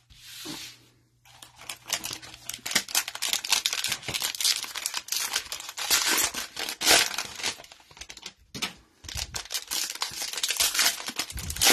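Cellophane wrapper of a Mosaic football card cello pack being torn open and pulled apart by hand: a dense run of sharp crackles, with a short break about two thirds of the way through.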